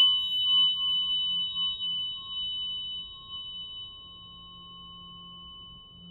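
Large metal tuning fork ringing after being struck, a clear high tone with a few overtones that fades slowly. In the first couple of seconds the level swells and dips as the fork is swept around the head and past the microphone.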